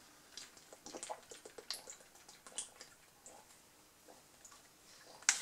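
A person drinking from a plastic water bottle: faint gulps and small plastic clicks, quieter in the middle, and one sharp click near the end.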